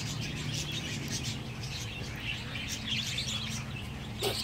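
A flock of budgerigars (parakeets) chirping and chattering in many quick overlapping calls, over a low steady hum.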